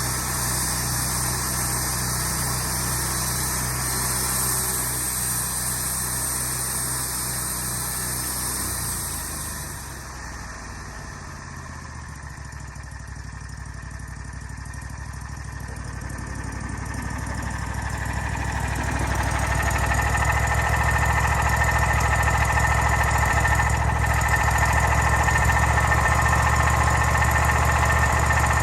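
An engine running steadily. It drops quieter about a third of the way in, then builds back up and runs louder from a little past the middle, with a higher steady whine added.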